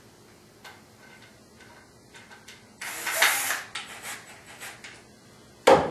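Handling noise of a cordless drill and screws being readied, with the drill not running: a short scraping rustle about three seconds in, scattered light clicks, and one sharp knock near the end.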